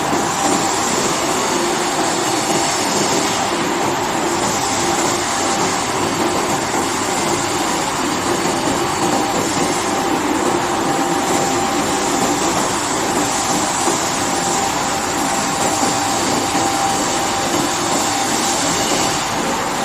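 Glass washing machine running steadily, a continuous mechanical noise with a thin steady whine.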